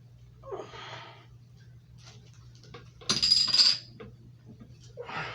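Hard objects being handled and set down, with scattered small knocks and one loud clinking scrape with a short ringing tone about three seconds in.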